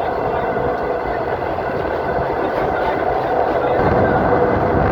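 Train running at speed, heard from on board: a steady rumble of wheels on rail, swelling a little about four seconds in.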